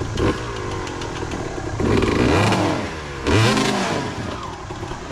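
Dirt bike engine running, then revved hard twice, about two seconds in and again a little after three seconds, its pitch climbing and falling with each blip of the throttle.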